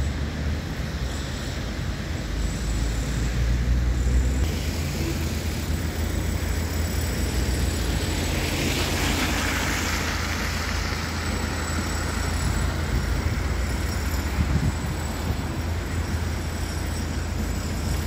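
Wind rumbling on the microphone over steady city traffic, with a vehicle passing about eight to ten seconds in as a hiss that swells up and fades away.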